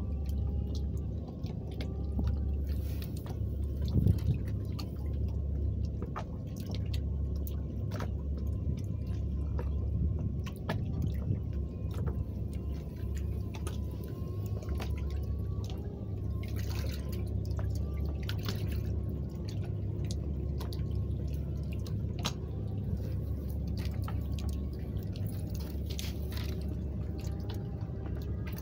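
Sea water lapping and dripping against a moored boat and the quay edge, with scattered small splashes and one sharper knock about four seconds in, over a steady low rumble.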